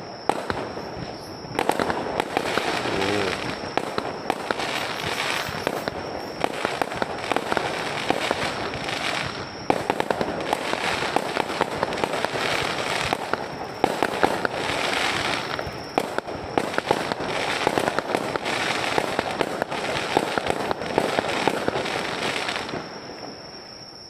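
Low-altitude fireworks display: a dense, continuous crackle of many sharp pops and cracks from bursting shells and crackling stars, which stops abruptly near the end.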